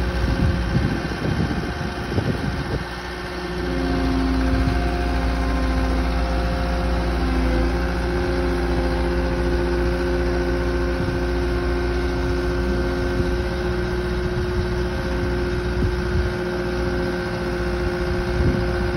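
Diesel engines of a Cat compact track loader and excavators running steadily as the excavators lift a boat, with a whining tone over the low rumble that changes pitch a few times.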